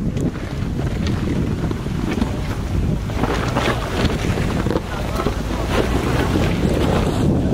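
Lexus LX570's V8 engine running under load as it crawls up a loose-rock hill, with tyres crunching and knocking over rocks. Heavy wind rumble on the microphone.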